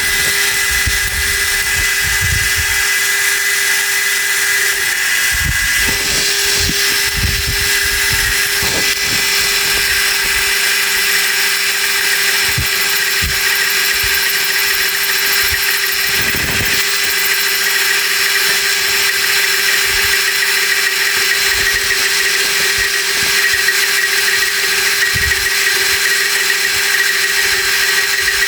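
Slitting saw turning on a machine spindle and cutting a slot into a steel part: a steady machine hum with a high, even whine and cutting hiss, and a few faint knocks.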